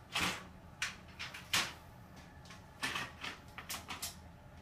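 Metal legs and frame of a folding ironing board clanking and clicking as they are pushed, folded and the board is lifted, in a string of irregular knocks.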